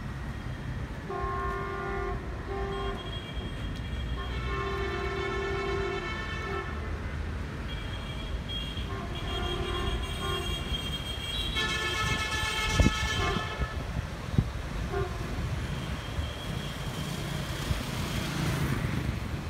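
Horn of a D10H diesel locomotive sounding a series of short and long blasts on one steady pitch, over steady street traffic noise. Two sharp knocks a second and a half apart come past the middle.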